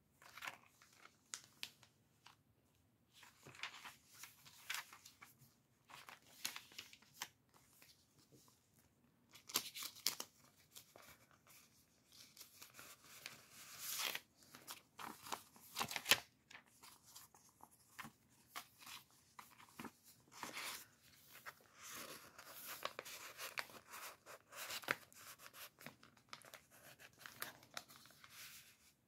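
Paper pages and tucked-in cards of a chunky handmade junk journal rustling and crinkling as hands turn and handle them, in a run of irregular short strokes.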